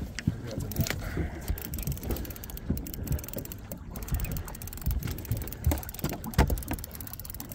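Two fishing reels being cranked steadily as the anglers reel in hooked walleye, their gears ticking and clicking, with scattered knocks and thumps on the boat.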